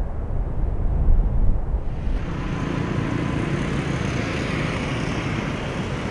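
A low rumble for about two seconds, then street traffic noise: cars and a motor scooter passing on the road.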